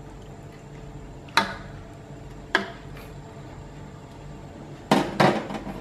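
Metal slotted spatula knocking against an aluminium wok while chicken braising in spiced liquid is turned: four clanks, the last two close together near the end.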